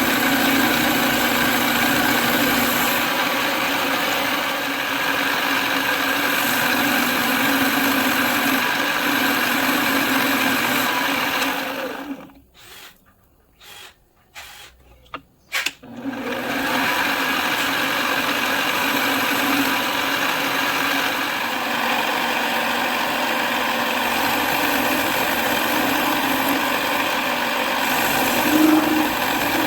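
A machine running steadily, likely an engine or a motor-driven tool. It drops out about twelve seconds in, with a few short sounds over some four seconds, then runs again.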